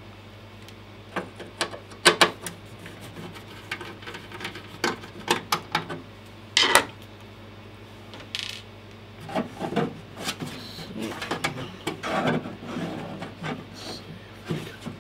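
Handling noises on a desk: a scatter of sharp clicks and knocks, the loudest about two seconds in and again near the middle, with rubbing and scraping between them as tools and a metal instrument case are moved. A low steady hum runs underneath.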